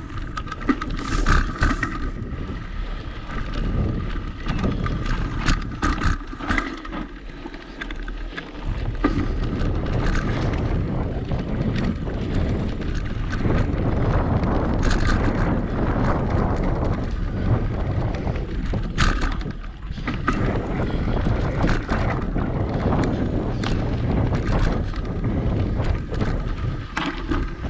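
Mountain bike riding down a dirt singletrack: tyres rolling over dirt and rocks, with wind noise on the microphone and frequent short knocks and rattles from bumps.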